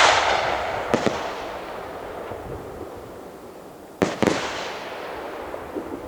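Aerial fireworks shells bursting in a professional display: a loud bang at the start, two sharp cracks about a second in, and two more bangs about four seconds in. Each bang is followed by a long rolling echo that slowly fades, with a few small crackles near the end.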